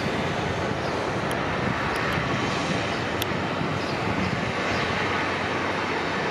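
Jet aircraft engines running on the airfield: a steady, even noise with no change in pitch.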